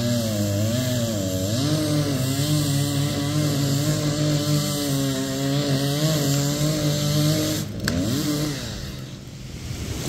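Chainsaw running at high speed while cutting through a tree trunk, its pitch dipping again and again as the bar bogs in the cut. Nearly eight seconds in it gives a brief rev up and down and then drops away, and a rising rush begins at the very end as the tree starts to fall.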